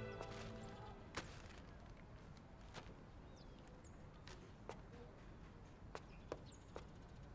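Sad background music fading out at the start, then faint outdoor ambience with a few short, high bird chirps and scattered soft clicks.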